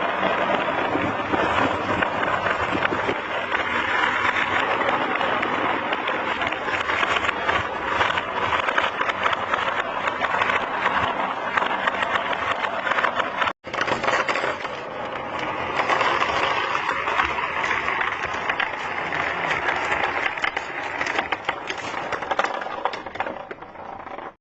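Many marbles rolling and clattering down a marble run, a dense continuous rattle of small clicks that breaks off for an instant about halfway through and thins out near the end.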